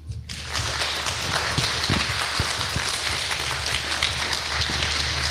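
Audience applauding, starting a moment in and holding steady.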